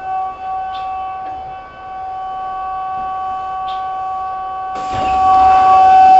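Station departure bell: a steady electronic ring made of several held tones, growing louder about five seconds in, sounding while the train stands with its doors open before they close.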